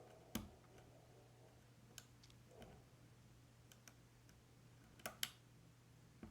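Sparse, faint metallic clicks of a hook pick and tension tool working the pins inside a Yale 500 lock, with a louder pair of clicks about five seconds in.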